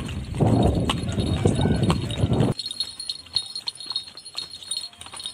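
Horses' hooves clip-clopping at a walk on a paved lane. For the first couple of seconds a loud, muffled rush of noise covers them. It cuts off suddenly, leaving fainter, irregular hoof clicks.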